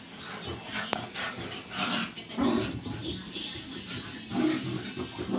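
A beagle and a terrier mix play-fighting, making dog vocal noises in irregular bursts, loudest about two and a half and four and a half seconds in. A sharp click about a second in.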